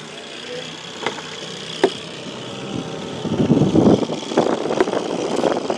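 Boat motor idling steadily, with two sharp knocks and then, from about three seconds in, a louder stretch of irregular rustling and knocking.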